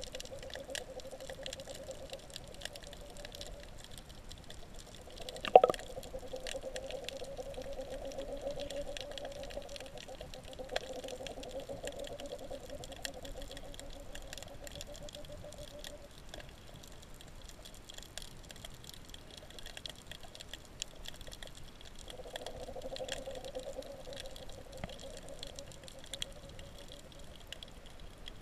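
Underwater ambience picked up by a camera beneath the sea surface: a continuous crackle of small clicks, with a low hum that fades in and out, and one sharp knock about five and a half seconds in. The uploader takes the crackling for noise made by the fish.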